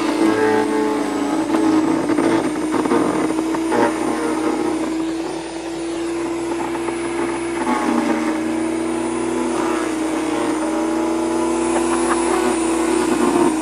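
Powersmart PS10 electric chipper-shredder running with a steady motor hum while it shreds branches fed into it, with irregular crackling and snapping from the wood being chewed up.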